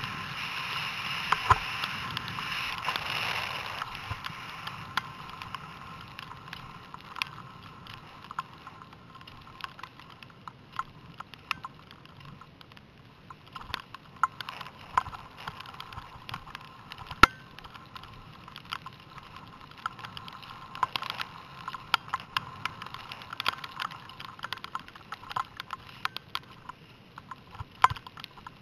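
Skis sliding over snow, heard from a helmet-mounted camera, with a rush of air noise over the first few seconds that then drops to a quieter hiss. Many irregular small clicks and knocks run throughout, one sharper knock about midway.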